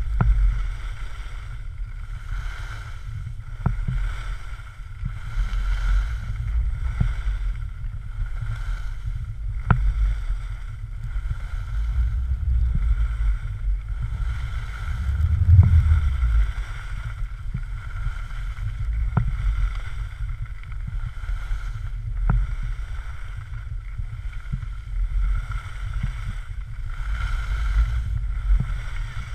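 Wind buffeting an action camera's microphone during a downhill ski run, with the hiss of skis scraping over groomed snow swelling and fading with each turn. A few sharp clicks stand out here and there.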